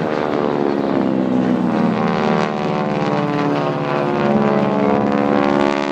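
Piston engines of propeller aerobatic planes droning overhead during a display routine. The pitch sinks over the first couple of seconds as a plane passes, then rises again about four seconds in.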